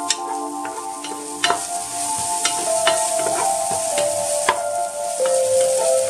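Ginger and garlic paste sizzling in hot oil in a non-stick pot, stirred non-stop with a wooden spoon that knocks against the pot now and then. Background music with held notes plays underneath.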